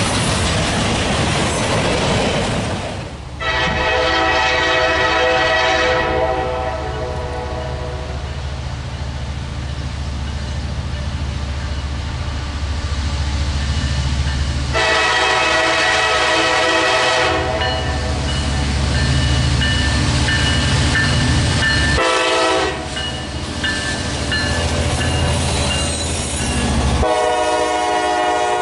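Diesel freight locomotive's multi-note air horn sounding the grade-crossing signal: two long blasts, a short one, then a final long blast that runs past the end. Under it, the steady rumble of the passing train.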